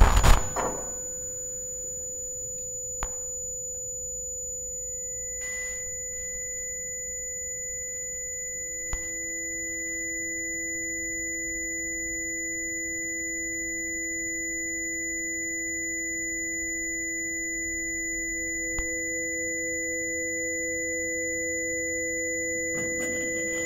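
Several steady electronic sine tones held together at low, middle and high pitches in an electroacoustic improvisation, the low tone growing louder about nine seconds in. A few faint clicks and a brief hiss about five seconds in; a louder passage dies away in the first second.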